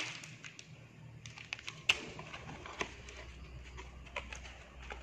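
Light, scattered clicks and taps of a cardboard box being handled, turned over and opened at its end flap, with a sharper knock about two seconds in.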